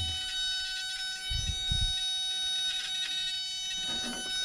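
Backhoe's dashboard warning buzzer sounding one steady tone with the key switched on and the engine not running, with a couple of dull low thumps about a second and a half in.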